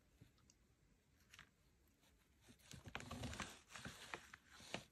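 Faint scraping and light clicks of a small metal palette knife working thick acrylic paint on a palette, coming in about halfway through after a near-silent start.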